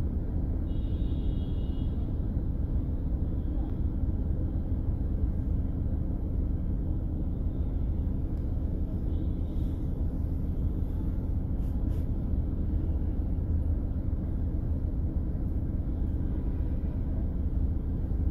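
Steady low rumble of road and engine noise from a vehicle driving along a city road, with brief faint high tones about a second in and again around the middle.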